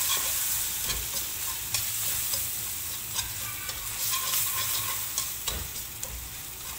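Metal wire whisk stirring and scraping a thick flour, onion and milk paste in a nonstick pan, its wires clicking against the pan in scattered ticks over a steady sizzle.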